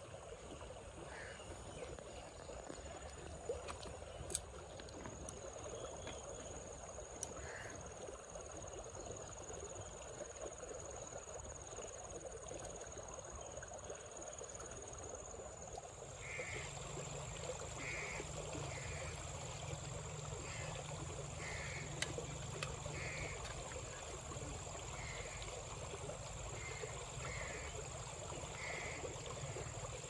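Outdoor nature ambience: a steady high insect drone over the faint rush of running water, with a few sharp clicks. From about halfway, short animal calls repeat every second or so, frog-like.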